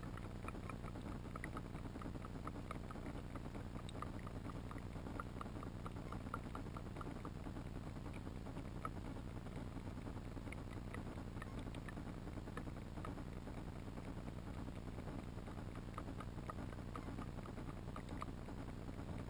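Muffled underwater ambience recorded through a camera's waterproof housing: a steady low rumble with many faint, scattered clicks.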